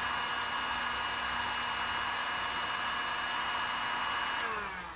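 Electric heat gun running steadily, its fan motor whining over the rush of blown air. It is switched off about four and a half seconds in, and the whine falls in pitch as the motor winds down.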